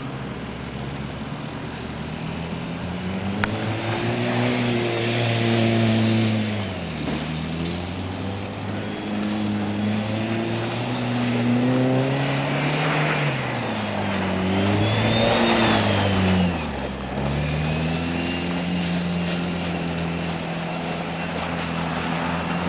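Toyota Tacoma pickup's engine revving up and down as the truck is driven hard through snow, the revs falling away sharply twice, about seven and seventeen seconds in. A hiss rides over the engine while the revs are up.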